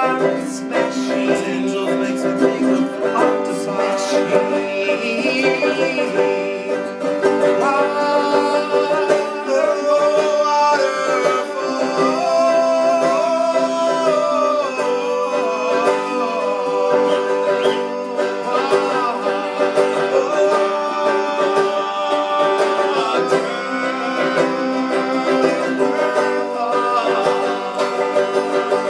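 Song music played on plucked string instruments, with a continuous gliding melody line.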